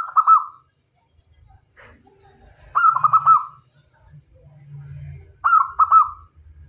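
Zebra dove (perkutut) singing its cooing song: three phrases about two and a half seconds apart, each a quick run of three or four short, clipped coos.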